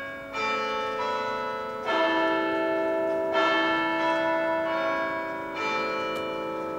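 Bells ringing slowly: a new stroke about every one and a half seconds, each leaving several tones ringing on and overlapping the next.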